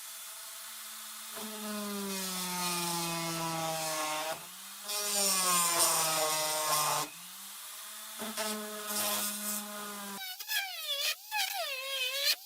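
Handheld rotary tool running with a burr, grinding away plastic in three bouts. Each bout adds a gritty hiss and a slight drop in the motor's pitch under load. Near the end the tool gives a higher whine that wavers up and down.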